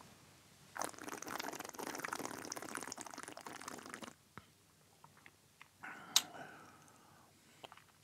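A mouthful of Glen Grant 12 single malt being swished and sucked around the mouth, a wet, crackling hiss for about three seconds. A little later comes a sharp lip smack and a short breath out.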